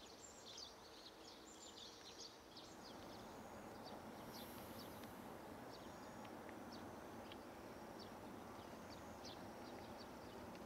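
Faint birdsong: many quick high chirps and short falling notes from small birds, over a soft steady outdoor hiss.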